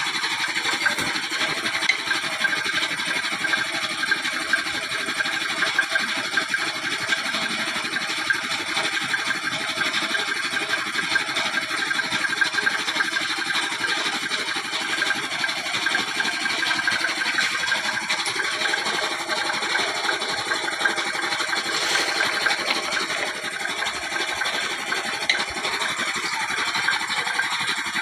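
A machine running steadily for the whole stretch, with a fast, even mechanical clatter and several steady tones.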